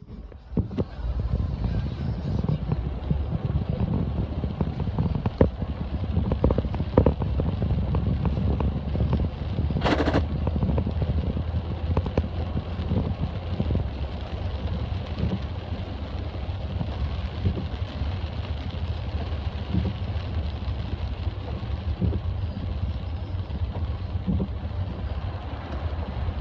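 Steady low rumble of a vehicle running, with a few scattered knocks and a brief rasping noise about ten seconds in.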